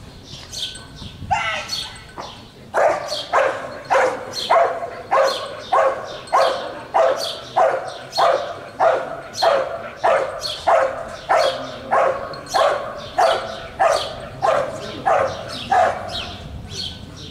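Belgian Malinois barking steadily at the helper, a little under two barks a second, for about thirteen seconds before stopping near the end. The dog is holding the guard in front of the helper after releasing the bite sleeve.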